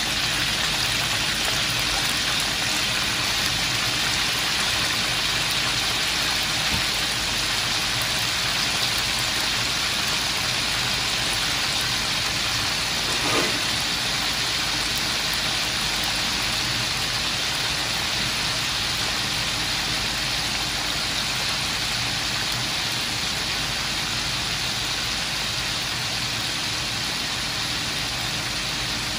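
Food deep-frying in a wok of hot oil: a steady, rain-like sizzle of bubbling oil over a steady low rumble.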